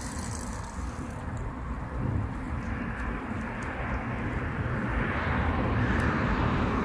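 Steady outdoor background noise: a low rumble under an even hiss that grows slightly louder near the end.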